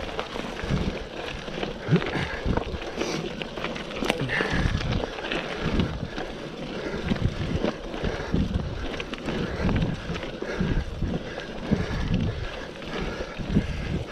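Mountain bike rolling over a rough trail: tyre noise with irregular knocks and jolts from the bike, and wind on the action camera's microphone.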